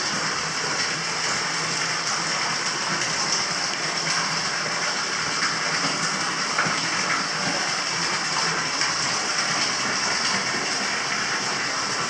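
Hot-spring water pouring steadily from a spout into a tiled bath, a constant, even splashing.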